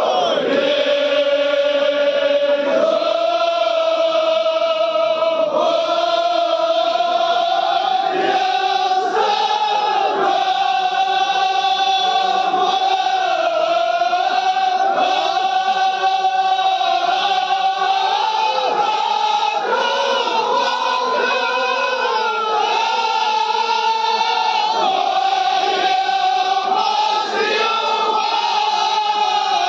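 Large crowd of men chanting together in unison, with long held notes that slide from one pitch to the next every few seconds.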